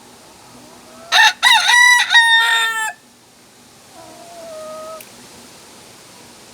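North Holland Blue rooster crowing once, loud: a broken opening followed by a long held note that sags slightly at the end. About a second later a fainter, lower drawn-out call follows.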